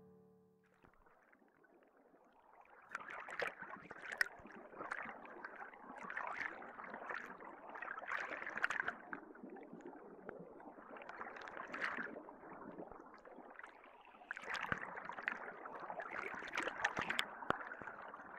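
Underwater water noise heard through a submerged camera while snorkeling: a muffled rushing and bubbling that swells and fades every second or two, with scattered small clicks.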